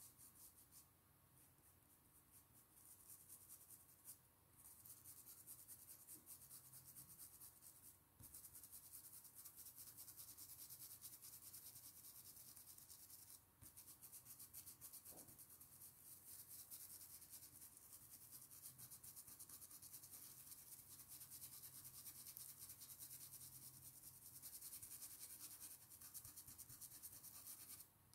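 Faint, rapid rubbing of a paintbrush on fabric through a plastic stencil, with a few brief pauses.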